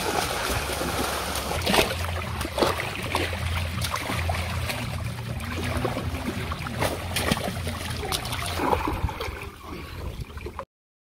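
Small outboard motor running steadily with water rushing past the boat, broken by several sharp knocks and splashes from fish leaping out of the water around and against the boat. The sound cuts off suddenly near the end.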